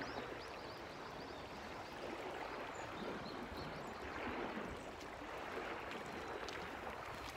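Soft, steady wash of small waves lapping at a rocky, shell-covered shoreline.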